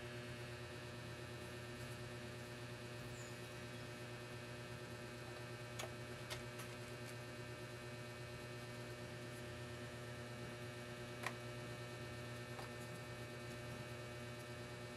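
Steady electrical hum, with a few faint clicks about six seconds in and again near eleven seconds.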